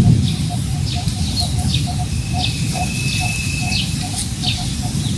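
Wind rumbling on the microphone while several birds call: short falling chirps repeated over and over, and one long, thin, steady whistle held for about a second and a half from about two seconds in.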